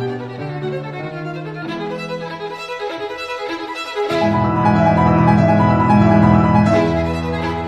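Instrumental background music with held, bowed-string-like notes, swelling louder about four seconds in.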